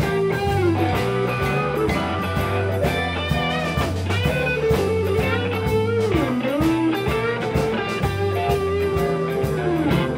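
Live blues band playing an instrumental: an electric guitar lead with long held notes and string bends, one dipping deep about six seconds in, over bass guitar, drum kit and keyboard.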